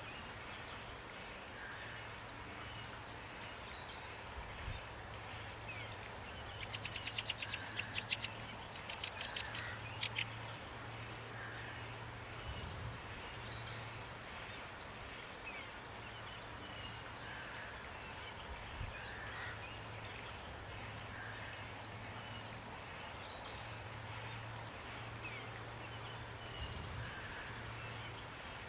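Steady rain falling with small songbirds chirping throughout, and a rapid rattling bird trill about seven to ten seconds in, the loudest moment.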